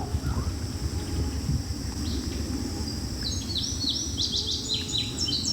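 A bird calling in a quick run of short, descending chirps that begins about halfway through, over a low steady rumble.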